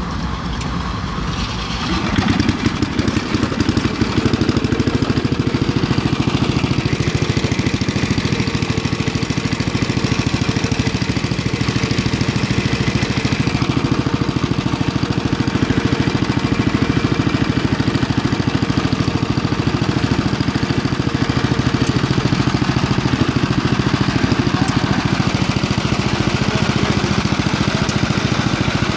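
Riding lawn tractor's small engine picks up about two seconds in, then runs steadily as the tractor is driven.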